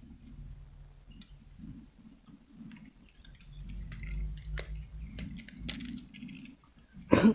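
Insects chirping high and thin over low rustling, with one brief loud knock near the end.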